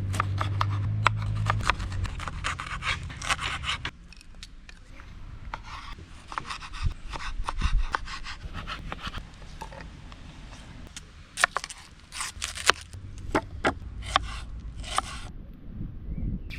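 A run of sharp wooden knocks and scrapes, typical of handling wood and utensils while preparing a campfire cook. The knocks are densest in the first few seconds and again in a cluster later on, over a low hum at the start.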